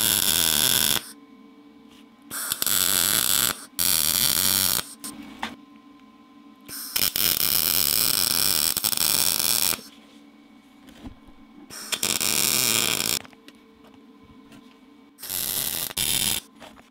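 MIG welding arc from a Lincoln Power MIG 210 MP, struck in about seven separate bursts of one to three seconds each while welding steel rod to a plumb bob, the longest near the middle. A low steady hum is heard in the gaps between welds.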